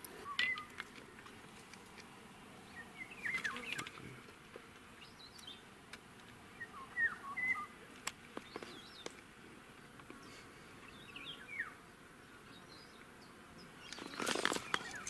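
Birds chirping: short, scattered calls, with a few sharp clicks and a brief louder burst of noise near the end.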